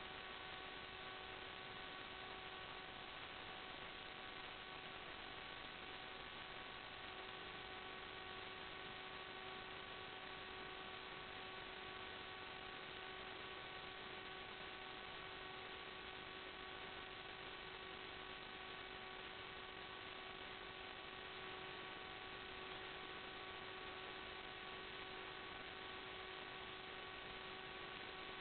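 Steady electrical hum made of several constant tones over an even hiss, unchanging throughout. It is the noise floor of a raw FPV video recording.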